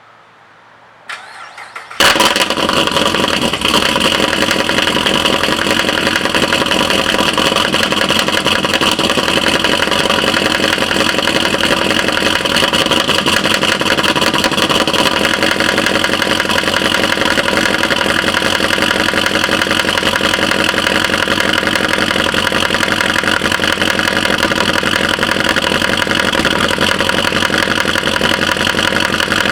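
6.0-litre LS V8 with a stage 2 cam, cranked briefly about a second in and catching about two seconds in, then running steadily with a fast ticking. The ticking comes from the driver's side of the engine, which the owner suspects lies under the driver's side valve cover.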